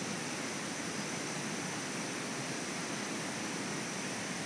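Steady rushing background noise of the forest at night, even and unbroken, with a faint constant high-pitched tone above it.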